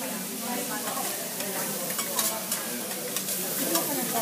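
Beef and mushrooms sizzling on a teppanyaki steel griddle, with a steady hiss. Metal spatulas scrape and click against the plate again and again as the chef turns the food.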